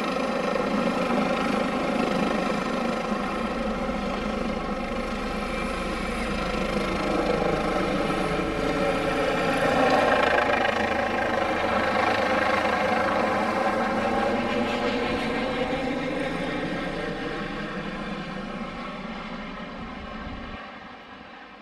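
Twin-engine Eurocopter EC145 T2 (Airbus H145) helicopter flying overhead with a steady rotor beat and turbine sound. It is loudest about halfway through as it passes above, then fades as it climbs away.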